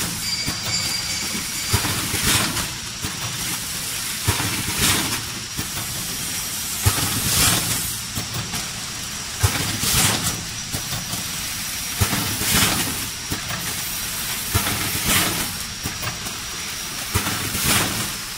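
Automatic bag packing machine running its cycle: a sharp clack, then a hiss of compressed air from its pneumatic cylinders, repeating about every two and a half seconds over a steady low hum.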